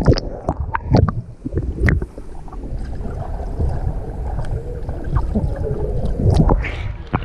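Muffled underwater pool sound picked up by a submerged camera: low water noise and bubbling from swimmers moving past, with several sharp knocks scattered through.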